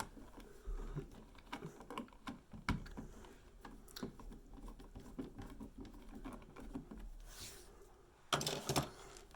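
Faint, irregular small clicks, taps and scrapes of a smart dimmer switch and its wall plate hardware being handled and seated into an electrical wall box, with a louder burst of handling noise near the end.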